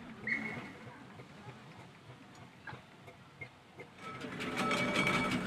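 Steam roller running slowly, a light rhythmic mechanical clicking from its engine and motion work. About four seconds in, a louder rapid clatter of steam traction engines comes in, with a thin steady tone over it.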